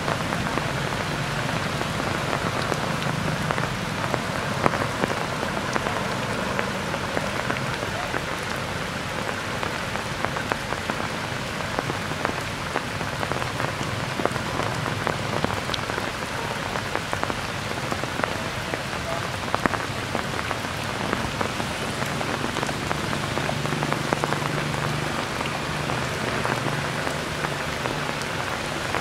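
Steady rain falling on tree foliage: an even hiss with many scattered drip ticks.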